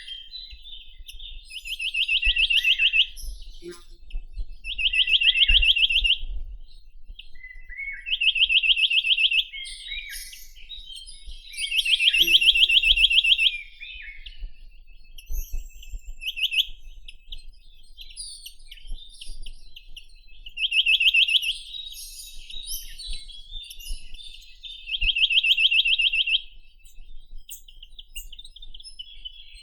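Chinese nuthatch (Sitta villosa) singing: a fast, even trill of rapidly repeated notes, about a second and a half long, given six times a few seconds apart. Fainter high chirps fill the gaps.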